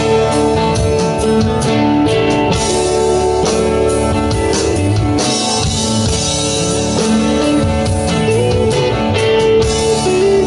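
Live blues-rock band playing an instrumental passage between vocal lines: electric guitars over bass and drums.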